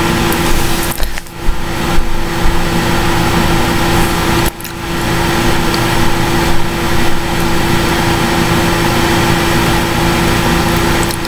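Loud steady hiss and hum from the recording computer, with one steady low tone under it; the uploader calls it feedback. It dips out briefly about four and a half seconds in.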